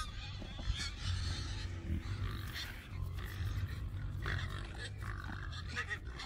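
Pigs grunting as they crowd close around a feed bucket, over a steady low rumble.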